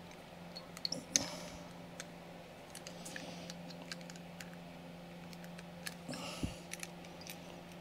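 Chainsaw file scraping and clicking lightly against a carburetor's throttle butterfly, in small irregular strokes over a steady low hum. The edges are being filed off slightly so the plate stops catching as it rotates.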